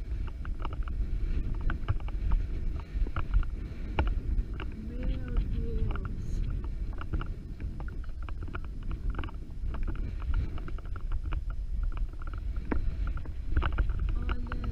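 Wind buffeting the camera microphone: a constant low rumble, with scattered short clicks and crunches and a faint, brief voice about five seconds in.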